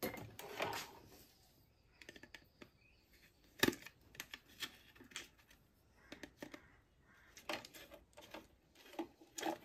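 Scattered light clicks and taps of a mixer grinder's metal base plate being handled and needle-nose pliers working the old overload switch loose, with one sharp click nearly four seconds in.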